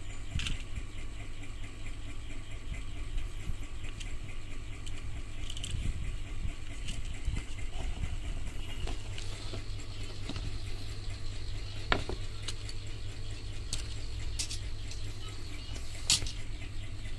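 Light clicks and rustling from handling plastic Mini 4WD model cars, with two sharper clicks late on, over a steady low rumble.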